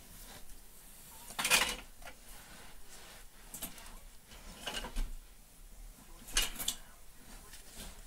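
Handling noise: a few short knocks and rustles. The loudest comes about a second and a half in, with fainter ones spread through the rest.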